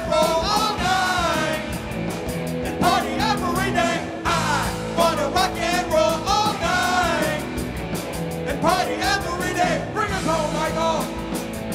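Live rock band playing: electric guitars, electric bass and drum kit, with a lead vocal sung over them.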